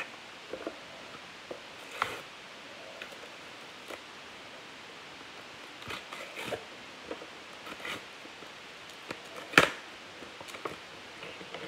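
Paper and card rustling as a sticker sheet and hockey card packs are handled on a table, with scattered light taps and one sharper snap about two seconds before the end.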